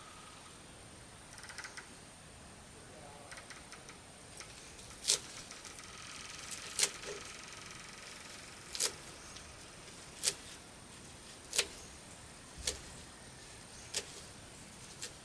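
A series of sharp clicks or taps, about seven of them, spaced one to two seconds apart, with a few softer clicks before them.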